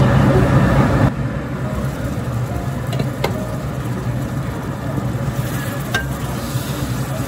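Wooden spatula stirring meat in a bubbling, sizzling soy-based sauce in a nonstick wok, louder for about the first second. There are a few light knocks of the spatula against the pan, and a steady low hum underneath.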